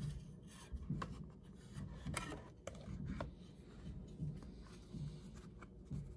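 Clear plastic catch bin of a coffee grinder being handled, with ground coffee brushed out of the chute into it: scattered light plastic clicks, taps and rubbing.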